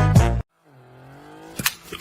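Swing-style brass band music that cuts off abruptly about half a second in. After a brief silence, a faint low pitched sound glides in pitch, and a single sharp click comes near the end.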